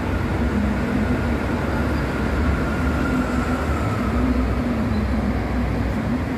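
Steady traffic on a multi-lane highway: trucks and cars driving past, a continuous rumble of engines and tyres with a low engine drone that rises and falls.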